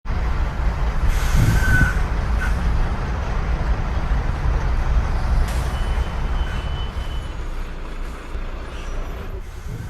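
Bus running with a steady low engine rumble, with two short bursts of hiss, about a second in and again around the middle.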